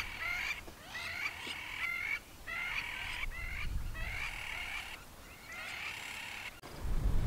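Birds calling in repeated harsh, pitched bouts of about half a second to a second each, one after another. The calls cut off abruptly near the end, giving way to a low rumble.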